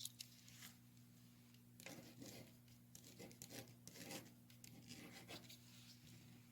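Near silence: a steady low hum with faint, scattered rustles and small clicks.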